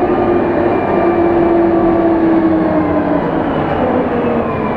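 City bus running: steady engine and drivetrain noise with a whine that drifts slightly in pitch.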